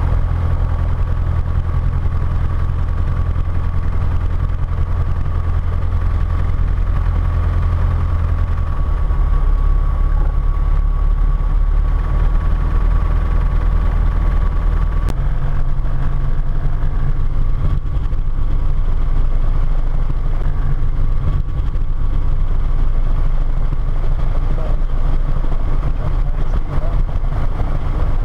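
Diamond DA-20's four-cylinder piston engine and propeller running at low taxi power, heard as a steady low drone inside the cockpit. The drone shifts slightly about halfway through, and a thin steady whine fades out at about the same time.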